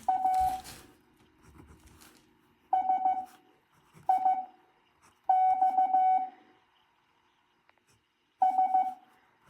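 Morse code practice tones sent at 7.5 words a minute: short groups of beeps on one steady pitch, each group a character, spaced by pauses of a second or more. Five characters sound, the longest about a second in length just past the middle.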